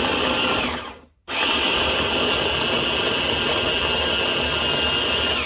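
Electric stick blender on a chopper-bowl attachment running, chopping wet vegetables with a steady high motor whine. About a second in the motor winds down and stops for a moment, then starts again and runs steadily until it winds down near the end.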